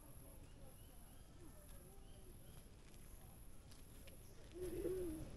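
Faint bird calls, a few short chirps, over quiet outdoor ambience, with a brief low murmur near the end.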